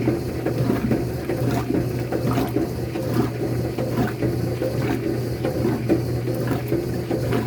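Koblenz 20-kilo agitator washing machine with a steel transmission running: a steady motor hum under churning water, with a regular stroke a little faster than once a second.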